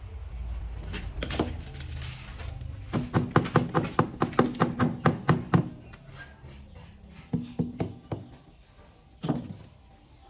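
Rubber mallet tapping a large ceramic wall tile to bed it into the mortar: a quick run of knocks, about five a second, for a couple of seconds, then a few scattered single taps.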